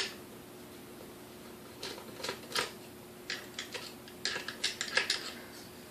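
Small metal parts of a KitchenAid 3C stand mixer being handled and set down during disassembly: irregular clicks and clinks, one at the start, then a cluster around two seconds in and another from about three to five seconds in. A faint steady hum runs underneath.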